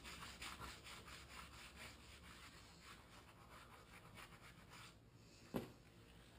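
A plug kit's rasp reamer being worked in and out of a puncture in a tubeless motorcycle tyre: a faint, quick rasping rhythm of about four or five strokes a second that stops after about five seconds, followed by a single knock.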